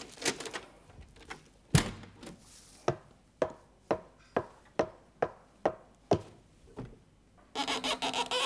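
Studio sound effects for radio drama. A prop door's rim lock clicks as its knob is turned, followed by a single heavy thunk. Then come eight footsteps of hard-soled shoes on a wooden platform, about two a second, and near the end the rasp of a wooden hand plane pushed along a board.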